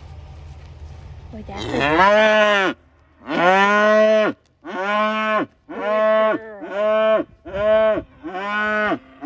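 A small red cow mooing over and over: seven calls in quick succession, each under about a second long, the first starting with a rising pitch about a second and a half in.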